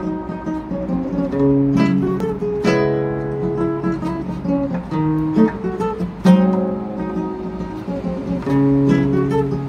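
Nylon-string acoustic guitar (violão) playing a xote intro: strummed chords with picked bass notes ringing between them.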